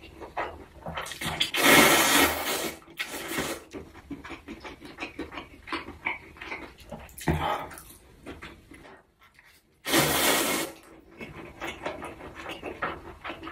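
Close-miked eating sounds: cold spicy bibim-myeon noodles and thin-sliced pork belly being slurped and chewed. Loud slurps about 2 seconds in and again about 10 seconds in, with wet chewing and smacking in between.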